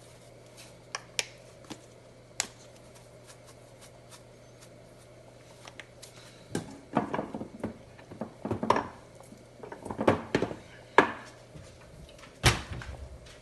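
Spoon working in a cooking pot: a few sharp clicks in the first couple of seconds, then from about six seconds in a busy run of scraping and clinking against the pot, with one loud knock near the end.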